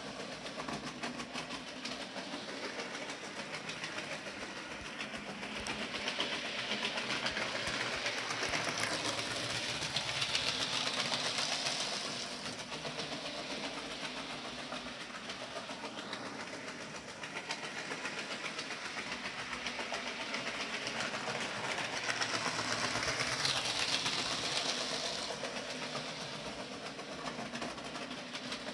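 A 00 gauge model locomotive running on the layout: a continuous whir from its small electric motor and wheels rolling over the track, swelling twice.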